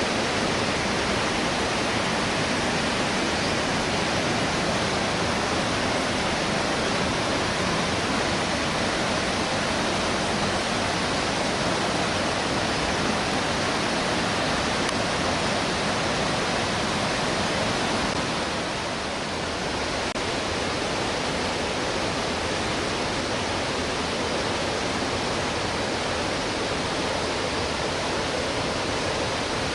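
Waterfall: a steady, loud rush of falling water, easing slightly for a moment about two-thirds of the way through.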